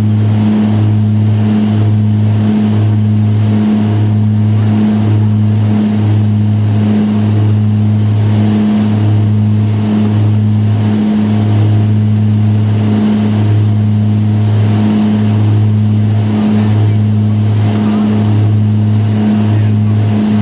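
Cabin drone of a BAe Jetstream 31's Garrett TPE331 turboprops and propellers during the climb after takeoff: a loud, steady low hum that throbs about once a second.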